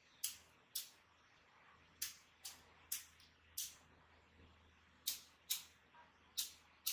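About ten sharp, high clicks, unevenly spaced, from the controls of a King Kong 1024 DMX lighting console as they are pressed and worked, over a faint low hum.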